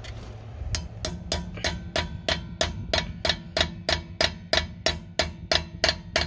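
Steady hammer blows on a steel socket, about three a second, each with a short metallic ring. The socket is being driven over a locking lug nut so that it bites, the usual way to remove a wheel lock whose key is lost.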